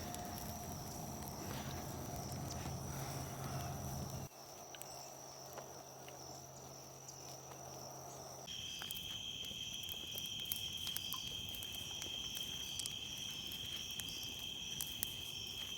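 Insects calling in a continuous high trill. About halfway through, a second insect chorus joins with a lower steady buzz, and small ticks sound here and there.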